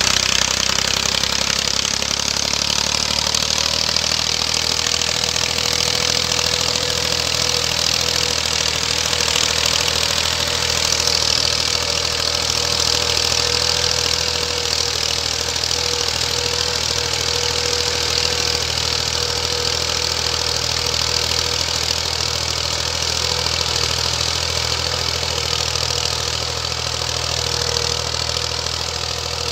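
Massey Ferguson 240 tractor's three-cylinder diesel engine running steadily under load as it pulls a cultivator through tilled soil.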